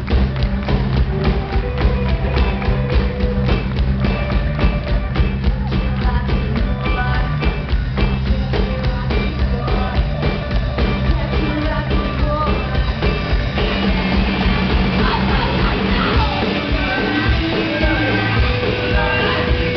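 Live rock band playing loud: electric guitars, bass and a fast, steady drum beat, with a male singer singing and shouting into the mic. Heard with everything above the upper treble cut off.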